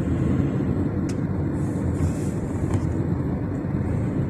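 Steady engine and road noise of a moving vehicle, a continuous low rumble.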